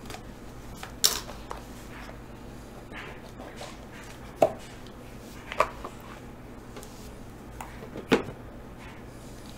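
Handling sounds as a sealed Immaculate football card box is opened: a utility knife slits the seal, then the rigid box and lid are tapped and knocked as the lid comes off and the cards are drawn out. About six sharp clicks and knocks come a second or more apart, the loudest about a second in, midway and near the end.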